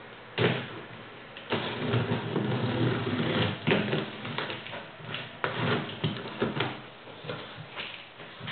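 Clear packing tape being peeled and ripped off a cardboard box in long noisy tears, then the cardboard flaps being pulled open with scraping and crackling.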